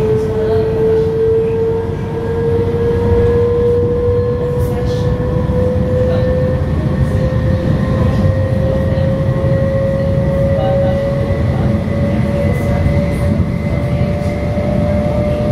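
Stadler FLIRT electric multiple unit (SAD ETR 170) under way: the traction drive's whine rises slowly and steadily in pitch as the train gathers speed, over a steady rolling rumble of wheels on rail.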